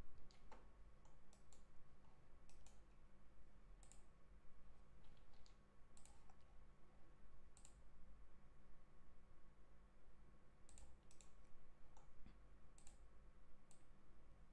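Computer mouse clicking: short sharp clicks at irregular intervals, some in quick pairs, as points are picked in CAD software, over a faint steady hum.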